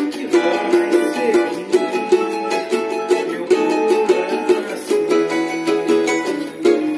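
Cavaquinho picking a quick melody, many short plucked notes a second in the mid-high range, with a lower held note joining about five seconds in.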